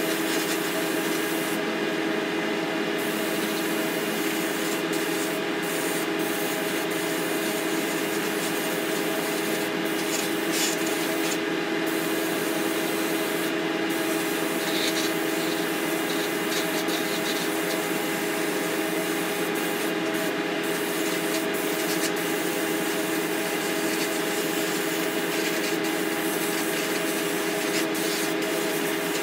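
Paint booth exhaust fan running steadily, with only one of its two fans on: a constant noisy drone with a low hum. A paint spray gun hisses briefly at times over it.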